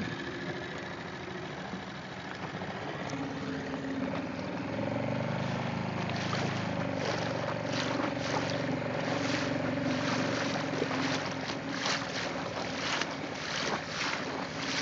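A boat engine running with a steady hum that comes up a few seconds in and dies away near the end, with gusts of wind buffeting the microphone.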